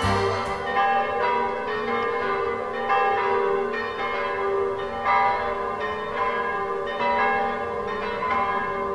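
Church bells ringing: a slow series of strikes, about one every two seconds, each ringing on and overlapping the next.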